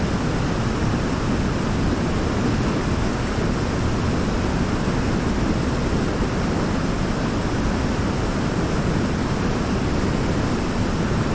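River water pouring over a large rock in a small waterfall: a steady, full rushing with the most weight in the low range and no change throughout.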